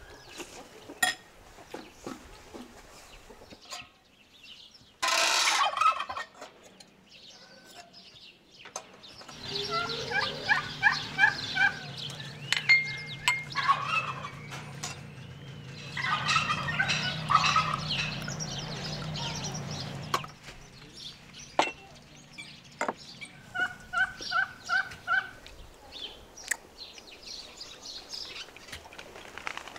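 Domestic turkey gobbling: rapid rattling call series about ten seconds in and again near twenty-four seconds, over a low steady hum. A loud noisy burst lasting about a second comes about five seconds in.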